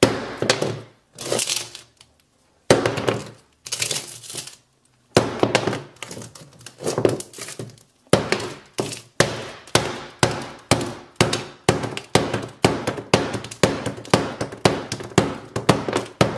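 A hammer repeatedly striking an iPhone 8 Plus, its cracked glass screen crunching and breaking further with each blow. The blows come slowly and unevenly at first, then quicken to a steady run of about two to three a second from about halfway.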